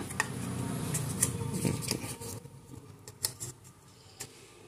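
Hands handle a speaker crossover circuit board against a plastic-and-metal speaker terminal cup. There is light rubbing and a few sharp clicks as the parts knock together, fading quieter toward the end.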